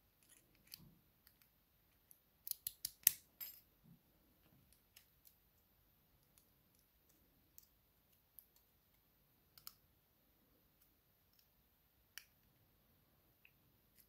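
Small metal clicks and taps from handling a key-in-knob lock cylinder, its key and a plug follower during disassembly. A quick run of five or six sharp clicks comes about two and a half seconds in, then only scattered faint ticks.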